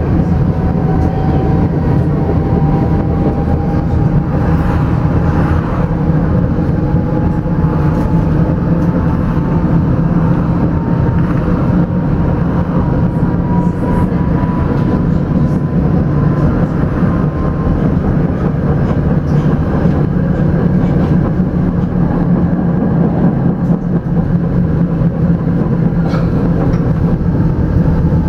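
Tram running along its rails, heard from inside the car: a steady, loud low rumble of wheels and running gear. Over it a thin whine rises slowly in pitch and fades out about two-thirds of the way through.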